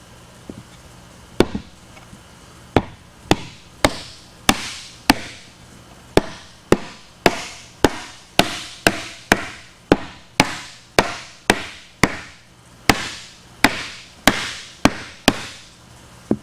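Rubber mallet striking a wooden shelf panel to seat it onto its dowels: a steady run of about two dozen blows, roughly two a second, each with a short ring.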